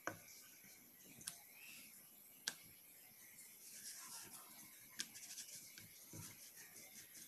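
Faint rolling and rubbing of a wooden rolling pin over thin dough on a metal plate, with a few light clicks as the pin taps the plate.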